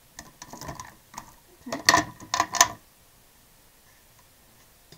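Acrylic paint tubes being gathered up off a tabletop: a run of light clicks and clacks, loudest about two seconds in, then still.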